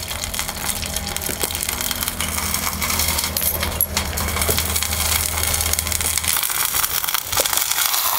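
Water with tempering spices bubbling in a small steel pot over a wood fire, the burning wood crackling, while the sugar dissolves. A steady low hum runs underneath and stops about six seconds in.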